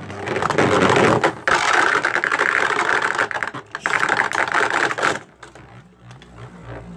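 Beyblade Burst spinning tops (Spriggan Requiem against Revive Phoenix) whirring and clashing in a plastic Beyblade stadium: a loud, fast rattling clatter that stops suddenly about five seconds in, leaving a quieter low hum.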